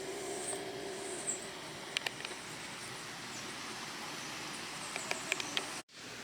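Outdoor ambience of faint high bird chirps over a steady hiss, with a few short clicks about two seconds in and again near the end.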